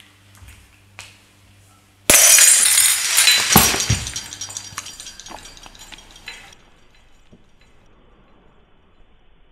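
A sudden loud crash about two seconds in, with a dense shattering, rattling tail that dies away over about four seconds.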